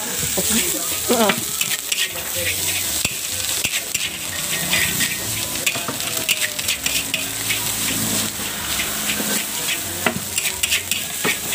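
Fried rice sizzling in a steel wok as a metal spatula stirs and scrapes it, with frequent sharp clicks of the spatula against the pan.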